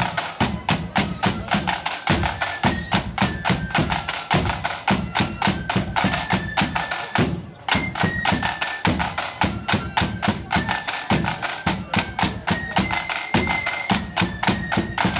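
Marching band playing: side drums beat rapidly with a bass drum under a high melody that steps from note to note, with a brief dip about seven and a half seconds in.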